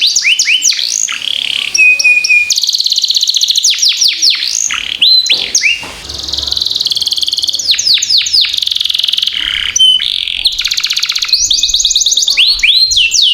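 Domestic canary singing continuously and fast: runs of quick downward-sweeping notes alternate with dense rapid trills. There is a short steady whistled note about two seconds in.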